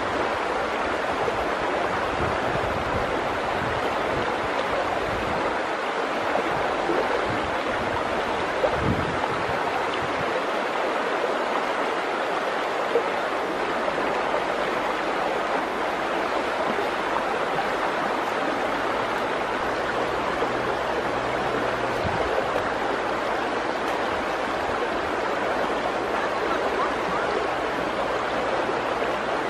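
Fast-flowing river water rushing in a steady wash of noise, with a few low thumps in the first ten seconds.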